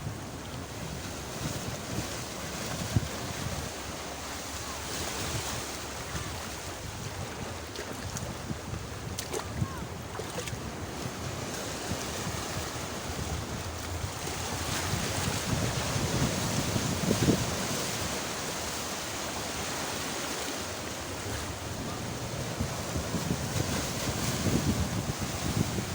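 Sea waves washing onto the shore, swelling louder now and then, with wind buffeting the microphone.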